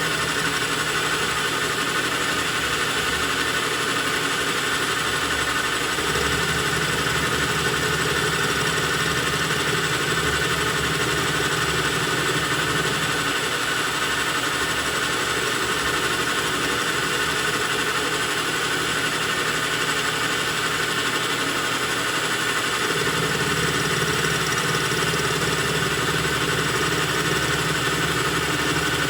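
Lathe running steadily while face-milling a copper bolt, with a steady whine throughout. A lower hum comes in about six seconds in, drops out about halfway through and returns near the end.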